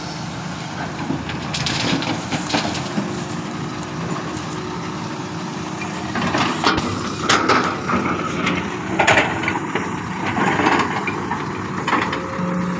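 Diesel engine of heavy construction machinery running steadily, with irregular knocks and scraping of soil and rock from about halfway through.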